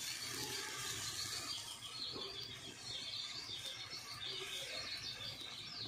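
Birds chirping repeatedly in the background, over a faint hiss as dry-roasted semolina pours into simmering water in a metal kadai.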